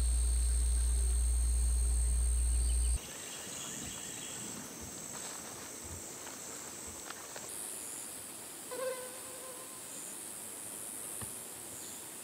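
Insects singing in steady, high-pitched trills; the chorus changes pitch abruptly twice. A loud low rumble runs under the first few seconds, and a short pitched call sounds about nine seconds in.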